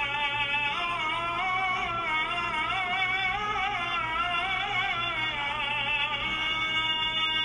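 Music: a solo voice singing a drawn-out, ornamented melodic line, its pitch bending and wavering through long held notes, over a steady low hum.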